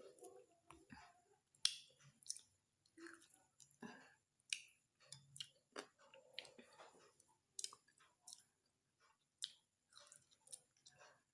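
Faint, irregular wet clicks and smacks of a person biting into and chewing a lemon.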